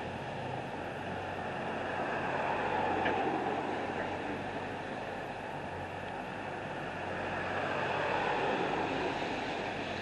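Street traffic: two vehicles pass in turn, their tyre and road noise swelling and fading about three seconds in and again about eight seconds in, over a steady low hum.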